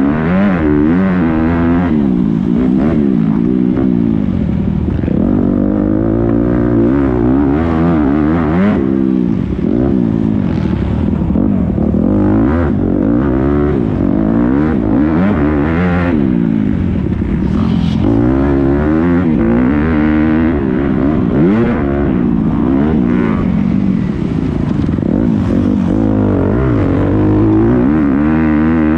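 Motocross bike engine, heard from on board, revving up and down over and over as the rider accelerates, shifts and rolls off the throttle around a dirt track.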